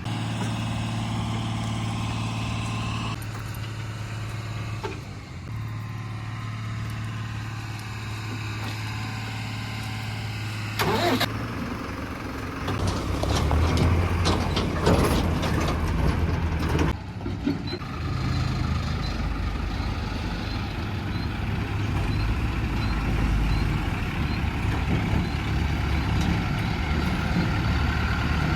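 Diesel engine of a JCB 3DX backhoe loader running steadily, then a loud stretch of clattering, scraping noise from about eleven to seventeen seconds in. After that the engine runs on with its pitch shifting up and down.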